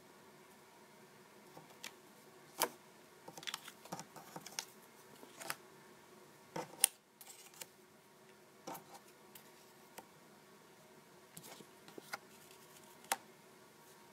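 Paper and card cutouts being lifted and laid down on a paper phone mock-up: scattered light clicks and short rustles of paper, with the sharpest about two and a half seconds in, near the middle and near the end, over a faint steady hiss.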